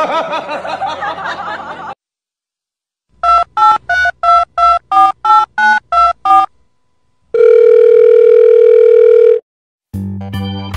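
Telephone keypad dialing tones: about eleven quick two-tone beeps in a row, then one steady beep held for about two seconds. Before them, a short pitched voice-like cry cuts off about two seconds in.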